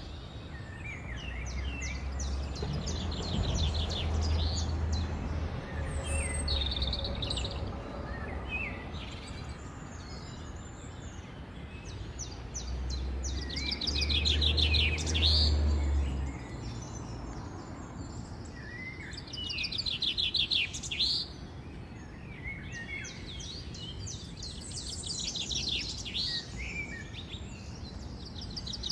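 Northern cardinal singing: phrases of rapid high trills and short slurred whistled notes, repeated with pauses between them. A low rumble sounds underneath twice, once in the first few seconds and again about halfway through.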